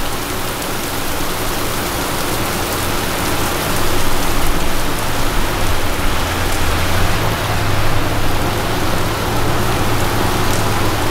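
Heavy rain pouring onto pavement and standing water, a loud steady hiss. Under it runs the low steady hum of a Porsche 993 Carrera RS's air-cooled 3.8-litre flat-six as the car rolls slowly up through the water, growing stronger after the middle.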